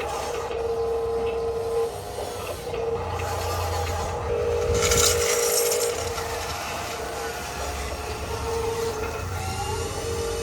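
Whine of RC trucks' electric motors and gearboxes, starting and stopping in spurts as the throttle is worked, with a brief hissing rush about five seconds in.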